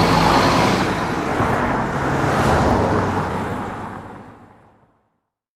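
Engine running steadily under a broad rushing noise, fading out about four to five seconds in.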